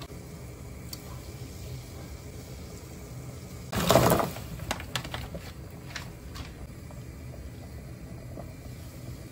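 A stainless steel pot of water boiling steadily on the stove. About four seconds in, a handful of frozen dumplings shaken from a plastic bag splash into the boiling water, briefly the loudest sound, followed by a few light clicks.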